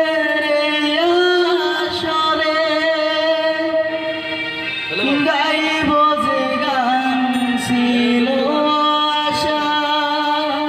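A boy sings a Bengali Baul song into a microphone, holding long notes at first and then bending and gliding between them, over instrumental accompaniment.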